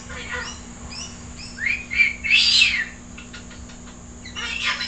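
A bird calling: a run of short rising chirps, then a loud call that rises and falls about two and a half seconds in, with more calls near the end.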